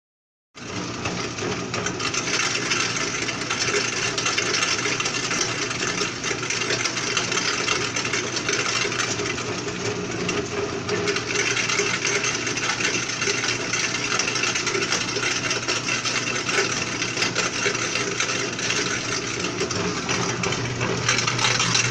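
Small single-phase electric pellet mill (about 200 kg/h) running steadily under load, starting about half a second in: a constant motor hum under the grinding of the die and rollers, with feed pellets rattling down a sheet-metal chute into a bucket.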